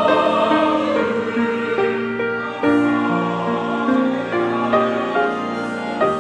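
Church choir singing a hymn with accompaniment, holding long notes that change every second or so.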